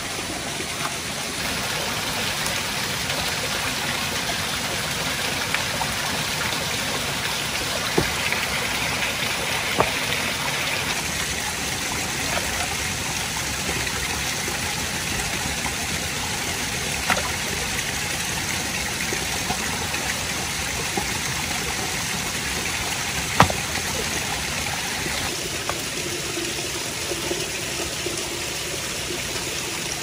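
Steady rush of flowing water from a stream or waterfall, broken by a few sharp knocks or clicks, the loudest about three-quarters of the way through.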